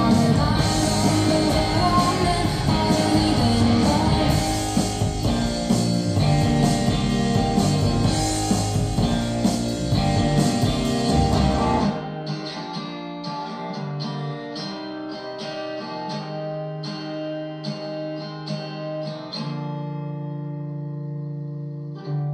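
A song played through a pair of Vivid Audio KAYA 45 floorstanding loudspeakers, picked up by a phone's microphone in the room. It starts as a full band mix with guitar. About halfway through, the drums and bass drop out, leaving sparse plucked guitar notes over a held low note.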